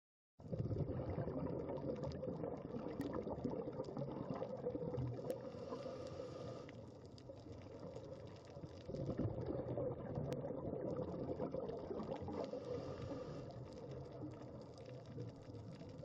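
Underwater ambience on a coral reef: a steady bubbling, rushing water noise that starts about half a second in, eases off in the middle, and cuts off abruptly at the end.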